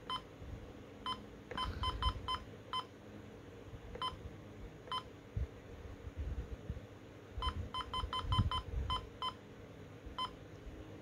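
Sima First Alert WX-167 weather alert radio giving a short high beep at each button press while its setup menu is scrolled. The beeps come singly and in quick runs of several, about seventeen in all.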